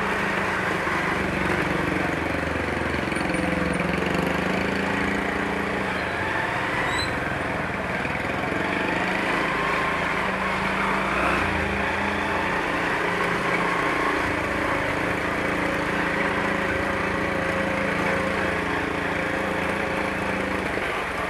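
Motorcycle engine running steadily on the move, with road and wind noise.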